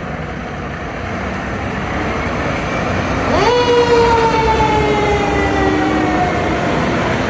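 Fire truck siren sound effect: a steady rumbling engine noise, with a siren wail that rises sharply about three and a half seconds in and then slowly falls.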